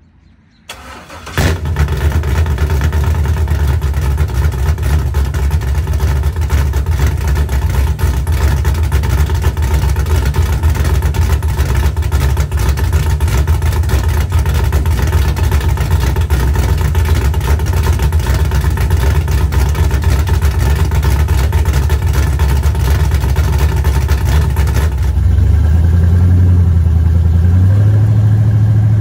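A 6.0 LS V8 with a big Cam Motion Junkyard Dog nitrous cam is started for the first time since the cam swap. It cranks briefly and catches about a second and a half in, then idles. For the last few seconds it is heard from inside the cab, its pitch stepping up slightly near the end.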